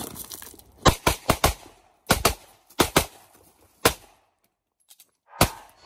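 Pistol shots fired in rapid pairs during a practical-shooting stage, about a dozen sharp cracks, with a pause of about a second and a half before two more quick shots near the end.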